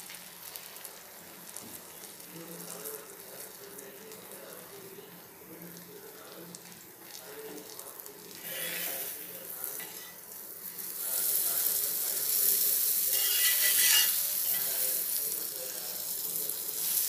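Butter sizzling on a hot cast tava as pav buns toast in it. The sizzle is soft at first, swells briefly about eight seconds in, and grows much louder from about eleven seconds on.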